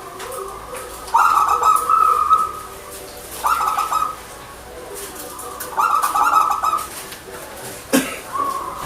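Zebra dove (perkutut) cooing: four bouts of rapid, trilled coos a second or two apart. There is a single sharp knock near the end.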